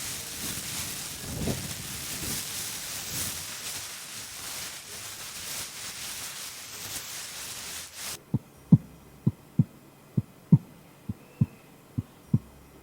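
A steady hiss that cuts off abruptly about eight seconds in, followed by a heartbeat sound effect: five low double thumps, about one pair a second.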